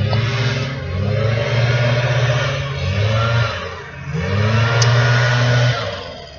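A motor vehicle's engine running loudly, its pitch rising and then holding about four seconds in, as when accelerating. It fades briefly near the end.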